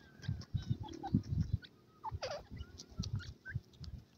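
Grey francolins giving short, soft chirps and squeaky call notes while foraging, with a run of low thuds in the first second and a half.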